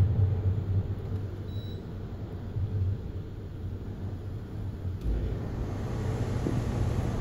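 Low, rumbling noise of a thunderstorm, with a brief faint high beep about a second and a half in.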